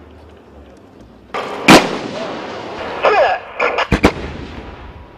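Heavy artillery firing: a loud report about a second and a half in, trailing off into a long rolling echo, then a quick run of further sharp reports around three to four seconds in. The guns are 155 mm self-propelled howitzers.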